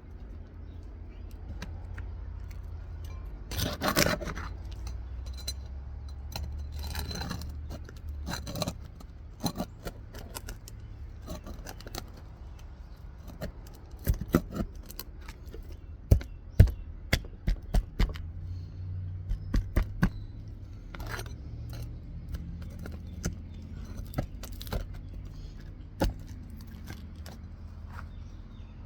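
A metal roof snake scraping and clicking under asphalt 3-tab shingles as it works loose the roofing nails, with a run of sharp knocks about halfway through.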